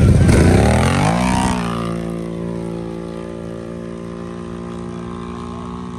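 Off-road drag racers' engines launching from the start line. A sudden loud burst as the throttle opens, then the engine pitch climbs for about a second and a half and settles into a steady, quieter drone at full throttle.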